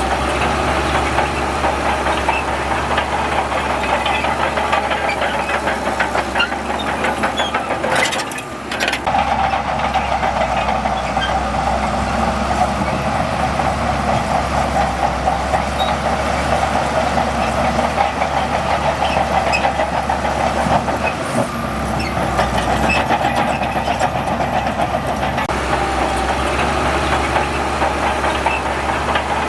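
Diesel engine of heavy earthmoving machinery running steadily with a dense rattling clatter; the sound breaks off briefly about eight seconds in.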